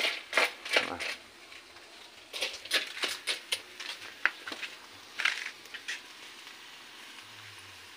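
Irregular light clicks and crackles, a few a second, thinning out after about five seconds.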